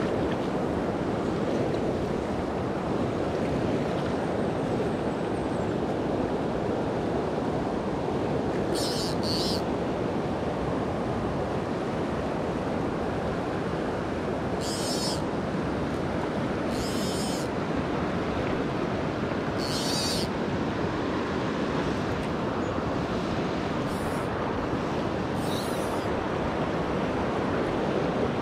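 Fast river water rushing steadily over choppy riffles. About seven brief high-pitched sounds are scattered over it in the middle stretch.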